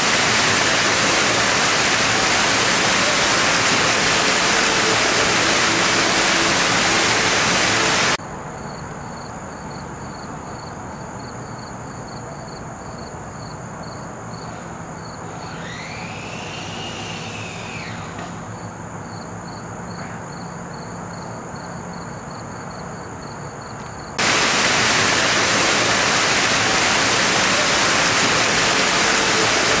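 Loud, steady hiss like white noise. About eight seconds in it cuts off sharply to a quieter hum with a faint steady high whine, and a short rising-then-falling tone about halfway through. The loud hiss cuts back in sharply near the end.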